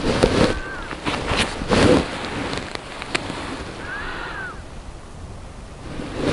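Rustling and brushing of gloved hands handling a freshly caught roach, in short noisy bursts in the first two seconds, then quieter, with wind on the microphone.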